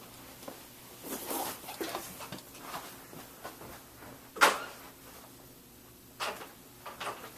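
Plastic laptop being handled on a work surface: soft rustling and scraping, one sharp click about four and a half seconds in, then a couple of lighter clicks.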